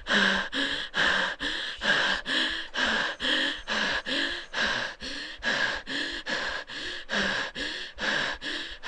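A patient breathing quickly and noisily in and out, about two to three breaths a second. Each breath is harsh and many carry a short pitched tone: stridor, the noisy breathing of a narrowed airway.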